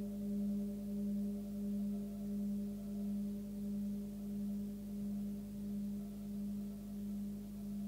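A 20 cm forged Tibetan singing bowl, tuned near 202 Hz (between G and G#), ringing out after being played: one steady low hum with fainter higher overtones, wavering in loudness about one and a half times a second as it slowly fades.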